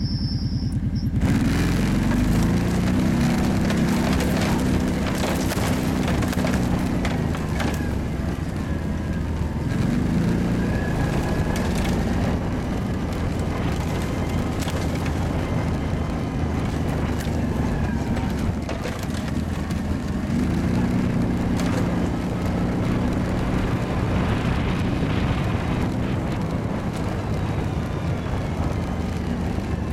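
Kawasaki ATV (quad) engine running under way, its revs rising and falling as it is ridden, with occasional knocks and rattles over the engine.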